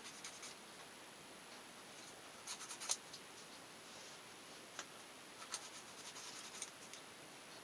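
Faint scratching of a small plastic model-kit part being cleaned up, its leftover sprue and rough edges worked off. It comes in two short spells, about two and a half and five and a half seconds in, with a sharp click near three seconds.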